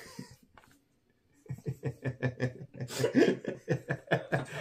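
Two people laughing together: after a near-quiet start, a run of quick chuckles, several a second, begins about a second and a half in and carries on to the end.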